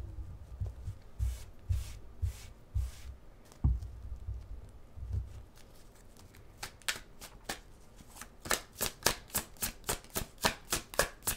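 A deck of tarot cards being shuffled by hand. It starts with soft handling and low bumps, then about halfway through turns into a quick run of card clicks, about three or four a second.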